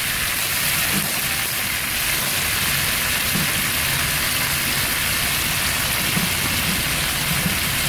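Diced beef brisket frying in olive oil in a pot: a steady sizzle.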